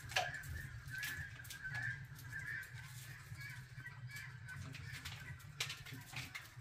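Faint high chirping calls over a steady low hum, with scattered light clicks.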